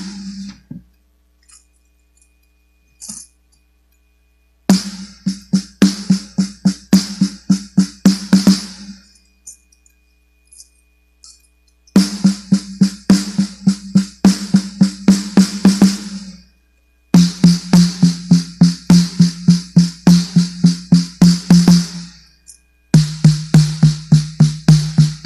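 14-inch snare drum fitted with LDH Luen heads, struck with sticks in four runs of quick strokes with short gaps between, after a quiet first few seconds. The drum's pitch is lower in the last two runs.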